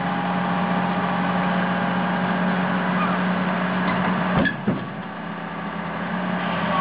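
Excavator's diesel engine running steadily as the machine works its way off a truck bed, with a short knock about four and a half seconds in, after which the engine sound drops a little.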